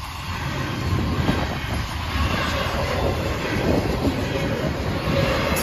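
Double-stack intermodal freight train rolling past: a steady rumble of wheels on the rails with irregular clacking.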